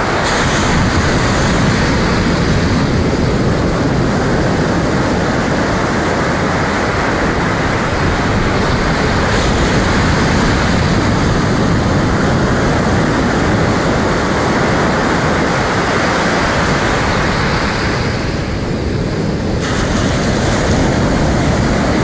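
Steady rushing of surf on a beach, with a brief thinning of the hiss near the end.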